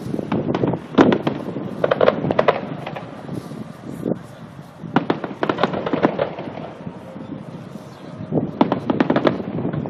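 Fireworks going off in rapid volleys of sharp bangs and crackles, in three clusters: one near the start, one about halfway through and one near the end.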